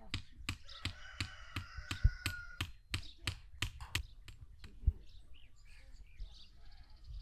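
A regular series of sharp knocks or taps, about three a second, that thins out to a few scattered ones after about four seconds.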